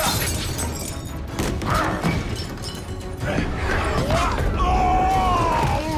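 Film action soundtrack: dramatic music over the crashes and thuds of a fight, with sharp impacts in the first couple of seconds and long wavering high tones in the second half.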